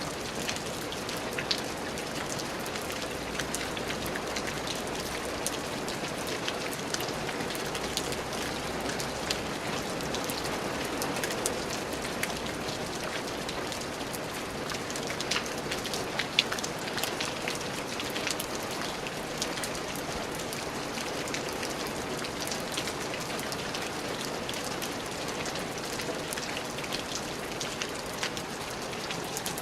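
Steady rain falling, with individual drops pattering sharply on a hard surface throughout.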